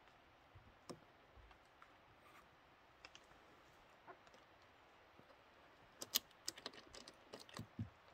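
A cat's claws and paws clicking on a minivan's windshield glass and roof as it climbs: a few faint taps, then a quick flurry of sharp clicks about six seconds in as it scrambles up the glass.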